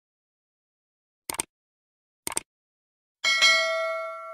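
Sound effects of an animated like-and-subscribe reminder: two quick mouse clicks about a second apart, then a notification bell chime near the end that rings on and slowly fades.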